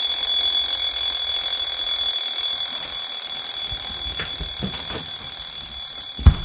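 Phone alarm ringing with a steady high-pitched tone that slowly gets quieter. Near the end, a loud drum beat of music kicks in.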